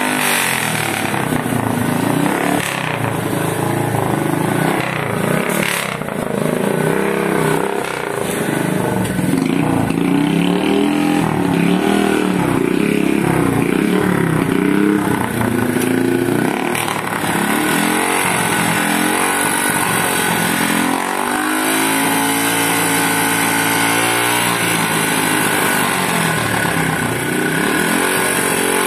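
Motorcycle engine of a homemade fogging machine, running loud. Its exhaust is fed with diesel mixed with fogging insecticide, which it burns into smoke. Through the second half the engine is revved up and down repeatedly.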